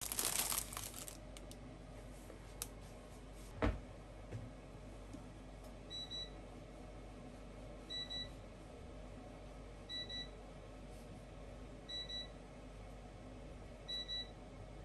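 Plastic bag crinkling, then one sharp knock, then an electronic appliance beeping a high double beep every two seconds, five times.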